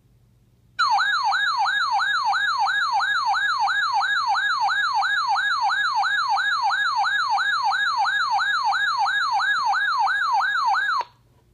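Electronic siren-style alert tone warbling rapidly up and down, about three sweeps a second, for some ten seconds. It starts about a second in and cuts off abruptly near the end.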